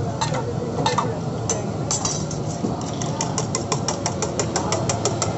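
Metal spoon clinking against a steel bowl of beaten egg: a few scattered clinks, then a fast even run of clinks about six a second from about three seconds in. A steady low hum and crowd chatter lie underneath.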